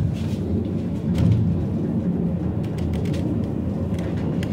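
Steady low rumble of a funicular cliff-railway car running down its rails, heard from inside the car, with a few faint clicks.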